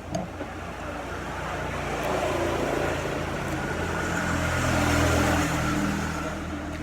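A motor vehicle passing by, its engine sound growing louder to a peak about five seconds in and then fading away.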